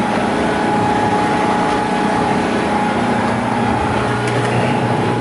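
Motorboat under way, its engine running steadily, heard from inside the enclosed cabin.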